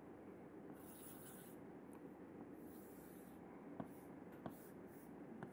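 Faint chalk strokes scraping across a chalkboard while a diagram is drawn, with two sharp taps of the chalk on the board in the second half.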